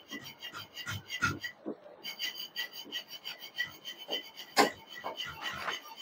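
Hand screwdriver turning out the screws of a window air conditioner's sheet-metal top cover: irregular scraping and clicking of the tool in the screw heads, with one sharper click about four and a half seconds in.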